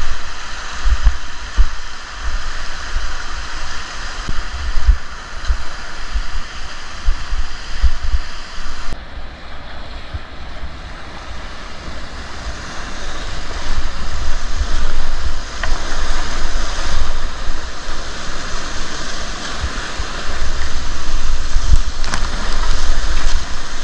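Rushing river water, a steady hiss, with wind buffeting the microphone in irregular low gusts.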